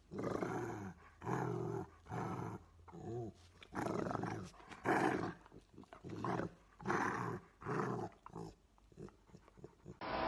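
A dog vocalizing in a run of about eight short, throaty calls, roughly one a second.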